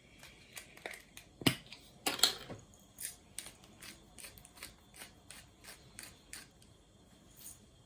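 Pepper grinder being twisted, giving a run of short crunchy clicks, with two louder ones in the first couple of seconds and then an even run of about three a second.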